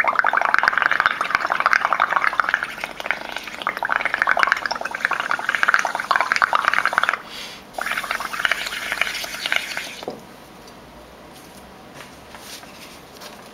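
Blowing through a drinking straw into a bowl of tempera paint mixed with soap and water: a rapid bubbling gurgle as the foam builds up. A long bout, a brief break about seven seconds in, then a shorter second bout that stops about ten seconds in.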